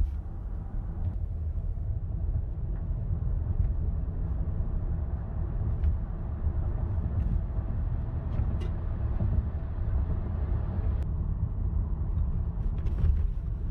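2007 Lexus ES350 being driven on a road test after a misfire repair: a steady low rumble of engine and road noise, with a few faint clicks.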